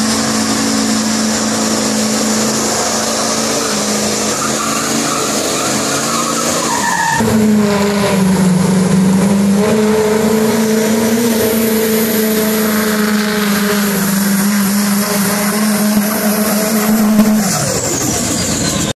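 Pickup truck engine running hard at high revs under load in a truck pull, tyres spinning on wet pavement. The engine note dips briefly about seven seconds in, holds steady again, then falls away near the end as the driver lets off.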